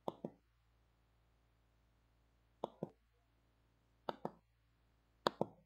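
Four double clicks like a knock-knock, each pair two sharp taps a fifth of a second apart, coming at uneven gaps over near silence: a short sound-effect phone ringtone.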